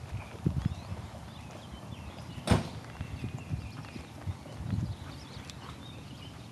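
Footsteps of someone walking, with irregular low thumps and one sharp click about two and a half seconds in.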